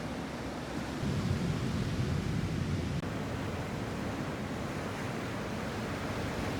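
Sea waves washing on the shore, with wind, louder for a couple of seconds about a second in.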